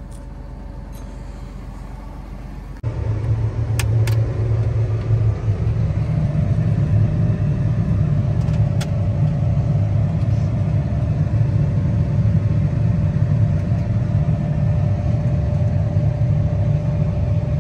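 John Deere 8530 tractor's six-cylinder diesel running, heard from inside the cab. It is loud and steady after starting abruptly about three seconds in, with a steady whine over it while the hydraulics raise the root slicer's folding wings. A couple of sharp clicks about a second after the loud part starts; before it, a quieter steady rumble.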